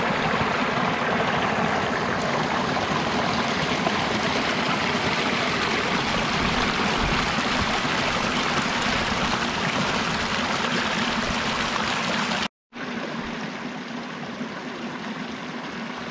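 Creek water running over a small rocky cascade past a log, a steady rush and splash. After a brief break about three-quarters of the way through, the flow goes on somewhat quieter.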